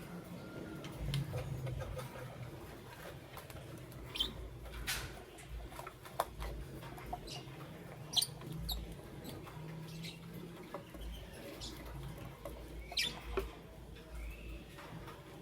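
Lovebirds giving scattered short, high chirps and squeaks, a few sharp ones standing out, over a low steady hum.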